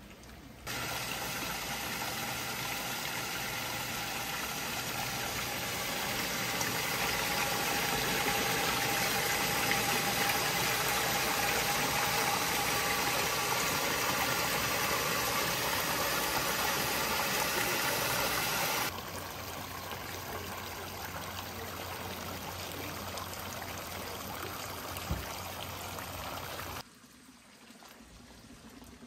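Water pouring steadily from a pipe spout and splashing into a full trough, an even rushing splash. About two-thirds of the way through it drops to a quieter steady rush of water, which cuts off shortly before the end.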